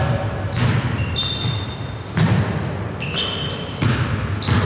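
A basketball being dribbled on a hardwood gym floor, with irregularly spaced bounces, and short high-pitched squeaks of sneakers on the court, echoing in a large gym.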